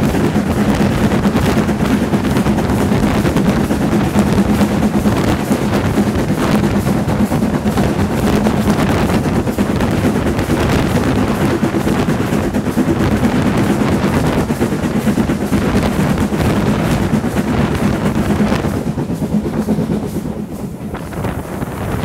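LMS Black Five two-cylinder 4-6-0 steam locomotive running at speed, heard from its footplate: a loud, fast, unbroken beating of exhaust and running gear. It eases slightly near the end.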